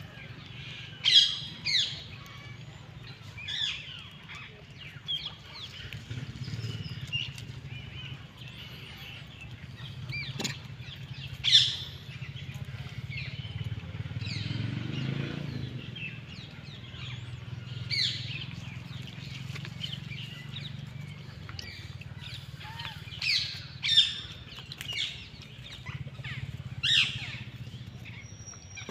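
Small birds chirping in short, sharp calls scattered irregularly, a few of them loud, over a steady low rumble.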